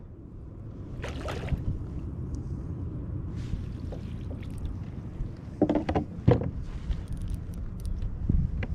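Water splashing and lapping beside a fishing kayak as a landing net is dipped and lifted out dripping, with a few short splashes about a second in and around six seconds in, over a steady low rumble.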